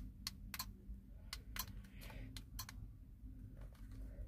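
Small plastic push-buttons on a handheld car dash camera clicking as they are pressed: about six sharp clicks, mostly in quick pairs, over the first two and a half seconds, with a low steady hum underneath.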